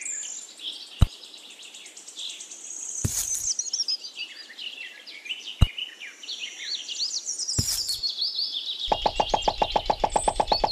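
Birds chirping throughout, with four sharp knocks a couple of seconds apart as small stones are set down on sand. Near the end a fast, buzzing run of even pulses starts.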